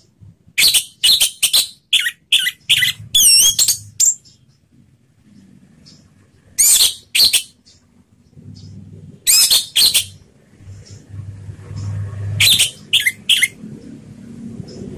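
Orange-headed thrush (anis merah) singing its loud, clear 'ngeplong' song in four short bursts of quick, high sliding notes with pauses between them. A faint low hum runs underneath in the second half.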